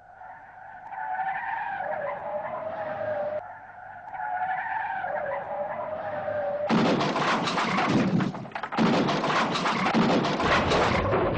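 Car tyres squealing in two long skids, the squeal wavering in pitch. Then, about seven seconds in, a louder harsh noise takes over for about four seconds, broken briefly once, typical of a car skidding out of control in a driving test.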